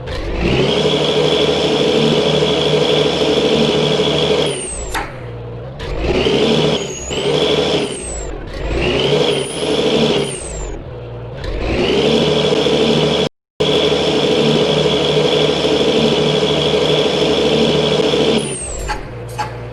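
Bus engine revved hard through a rasping 'ngorok' (snoring) exhaust: one long held rev, two shorter blips, then another long rev of about six seconds. The sound breaks off for an instant around the middle of the last rev.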